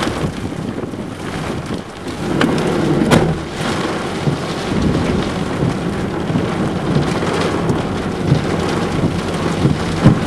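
Heavy rain falling with wind, and sharp ticks of drops striking close to the microphone.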